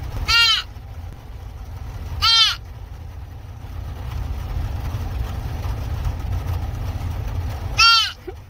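Deer fawn bleating three times, short calls that rise and fall in pitch, the last near the end. Under them runs the steady low rumble of the car it is riding in.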